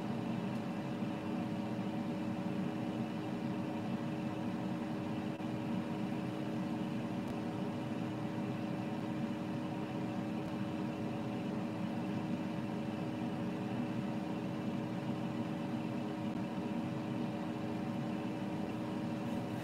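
Basket air fryer running: a steady whir from its fan with a low hum that holds two even tones, unbroken throughout.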